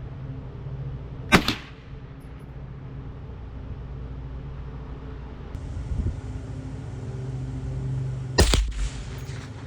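Two single shots from a Mossberg International 715T .22 rifle, about seven seconds apart, each a sharp crack. A steady low hum runs underneath.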